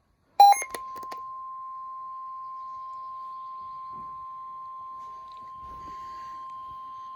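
Weather-radio warning alarm: about half a second in, a brief loud burst of electronic beeps, then a single steady high tone that holds unbroken, the alert tone that opens a new severe thunderstorm warning.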